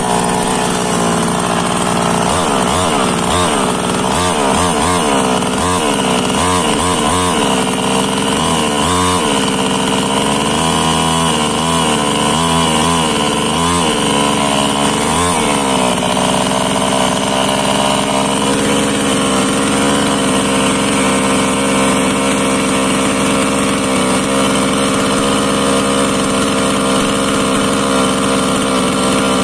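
H&L Pro mini chainsaw's small two-stroke engine being revved up and down about a dozen times in quick blips, then settling into a steady idle for the second half.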